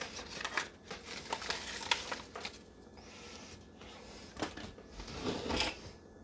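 Chili powder seasoning packet crinkling and rustling as it is handled and emptied over a pot of chili, with a soft hiss partway through.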